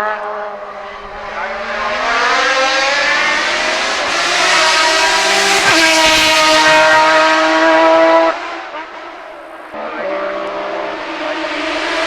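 A Group CN sports-prototype race car's engine at full throttle, its note climbing steadily in pitch and held at high revs. It cuts off abruptly about eight seconds in as the driver lifts off, then comes back on the throttle less than two seconds later.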